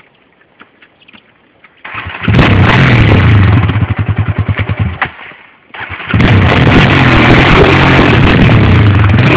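ATV (quad bike) engine started about two seconds in, running with a rapid uneven pulsing, then dying out briefly before it is started again and runs steadily.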